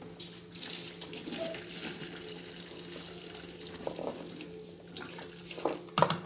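Hot cooking water poured off boiled chayote from a tilted pot into a stainless steel sink, splashing steadily for several seconds, with the pieces held back by a fork. It thins out near the end, followed by a couple of sharp knocks.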